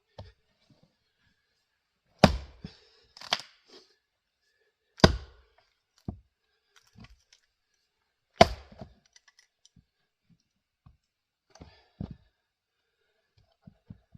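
Jersey-pattern axe splitting grand fir rounds: three sharp cracking strikes about three seconds apart, with smaller knocks of wood in between and a last knock near the end.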